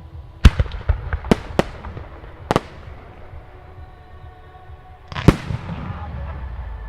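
Aerial firework shells bursting: a quick run of about six sharp bangs in the first three seconds, then a single heavier bang a little after five seconds that echoes on for a couple of seconds.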